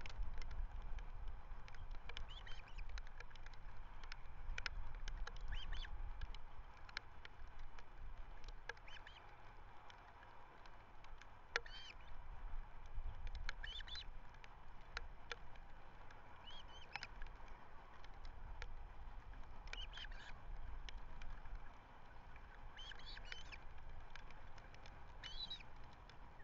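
Birds calling: short, curved calls repeated every couple of seconds, over a low wind rumble on the microphone and scattered sharp clicks.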